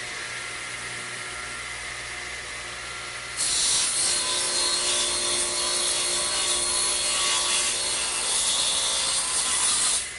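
Radial arm saw with a 72-tooth carbide blade running at speed, then, about three and a half seconds in, cutting across a thick wooden stretcher to make a shoulder cut; the louder cutting noise runs for about six seconds and stops near the end.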